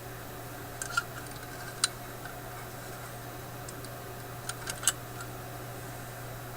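A handful of small, sharp clicks and ticks from hand tools working at a radio chassis, a few near the start and a quick cluster of three near five seconds in, over a steady low electrical hum.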